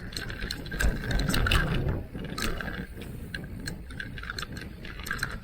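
Electric mountain bike ridden over a rough trail: rattling clicks and knocks from the bike and tyres over the rough ground, with a heavier rumble between about one and two seconds in.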